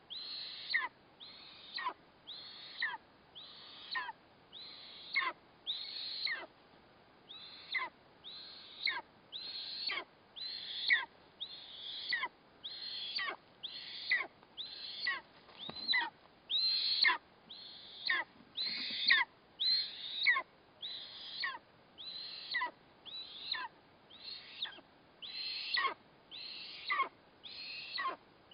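Eastern imperial eagle nestling giving a steady series of short, high begging calls, about one a second, each falling in pitch, while it is being fed.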